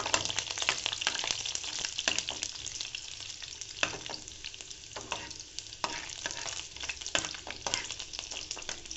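Chopped garlic sizzling in hot oil in an aluminium pan, stirred with a steel spoon that scrapes and clicks against the pan many times.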